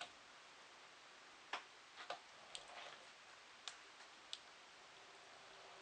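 Small two-wheeled robot driving over wooden floorboards: very quiet, with faint hiss and about half a dozen short, sharp clicks at irregular intervals.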